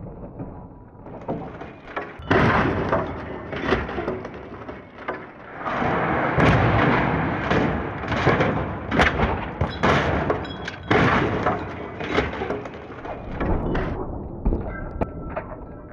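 Cars rolling over in rollover crash tests: repeated heavy thuds of the body slamming onto pavement, with crunching metal and breaking glass. The crashing starts about two seconds in, comes in many sharp knocks through the middle, and thins out near the end.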